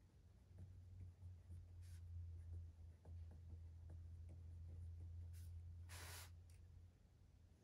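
Faint pen strokes scratching and ticking on notebook paper over a low steady hum, with a short paper rustle about six seconds in as the spiral notebook is shifted.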